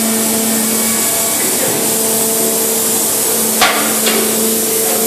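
Steady, loud machinery noise with a hum inside a tunnel boring machine. A sharp knock comes about three and a half seconds in, and a lighter one half a second later.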